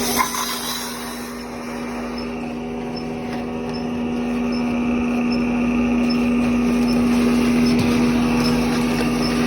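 Lockformer 14-station triplex roll former running with a steady machine hum that slowly grows louder. A faint high tick repeats about every half second over the hum.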